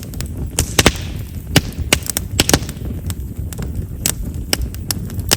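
Chestnut firewood burning in an open fire, crackling with frequent irregular sharp pops over a low, steady rumble of flame. Chestnut is known as a popping firewood because of its large vessels.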